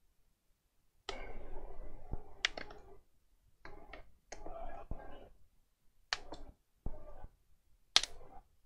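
Plastic clips of a Samsung Galaxy Tab 4's back cover snapping loose one after another as a plastic pry tool is worked along the seam, with rough scraping of the tool between the sharp clicks.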